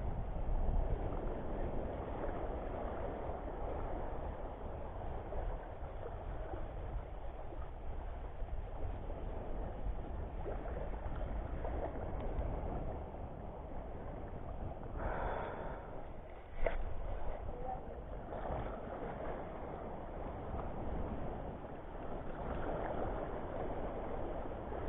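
Wind buffeting the microphone over small waves washing in shallow water at the shore. About fifteen seconds in there is a brief rustle ending in a single sharp click.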